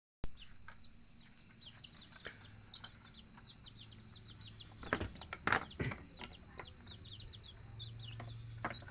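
Many short, falling bird chirps over a steady, high-pitched insect drone, with a low hum that comes and goes. A few sharp knocks about five to six seconds in.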